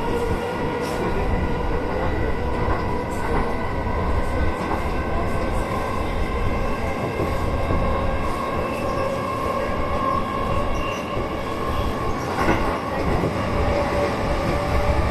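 Electric commuter train running between stations, heard from the driver's cab: a steady rumble of wheels on rail under a continuous whine of several steady tones, with a slight rise in pitch in the second half.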